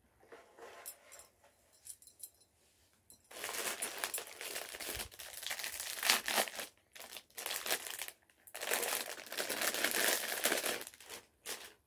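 Gold foil packet crinkling and tearing as it is pulled open by hand. Faint crackles at first, then two long spells of loud crinkling, about three seconds each.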